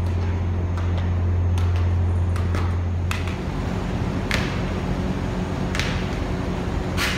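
Footfalls of a hurdler's running shoes striking a concrete floor as he runs and clears practice hurdles: sharp separate slaps, the loudest about every second and a half in the second half. Under them is a steady low hum that changes to a rougher rumble about three seconds in.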